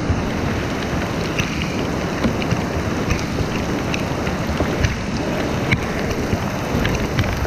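Steady rain falling on the creek's surface, with many individual drops ticking sharply close by.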